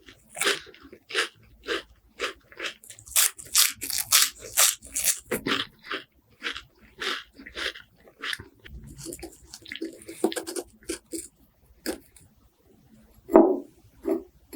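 Close-up crunching of crispy wafers being bitten and chewed: a fast, irregular run of sharp crackles. After a short lull near the end come two louder, duller chews.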